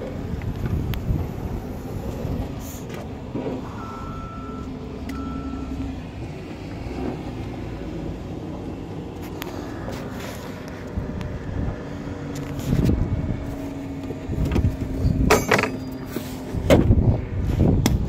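A motor vehicle running as a steady low rumble, with two short high beeps about four seconds in and a few low bumps near the end.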